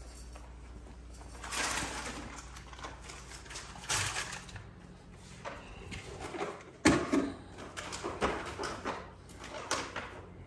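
Rustling and clattering of things being handled indoors, with a sharp knock about seven seconds in.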